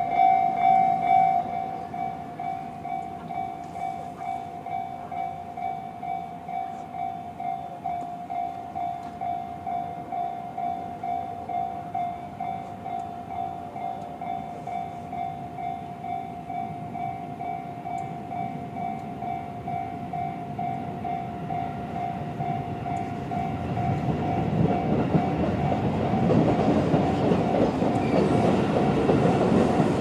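Japanese level-crossing electronic warning bell in the JR standard tone, ringing steadily at about two strokes a second, dropping to a lower volume about a second and a half in. Over the last several seconds a Seibu 4000 series electric train approaches and runs over the crossing, its rumble and wheel clatter rising to the loudest sound.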